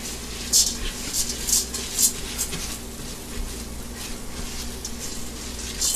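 Pearl barley and shallots sizzling gently in olive oil and butter in a stainless steel pot, being toasted until translucent, with a spatula scraping through the grains in short strokes, several in the first couple of seconds and one more near the end.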